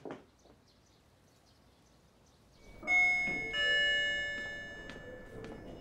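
A two-note electronic ding-dong chime, starting about three seconds in, its tones ringing on and fading over the next two seconds.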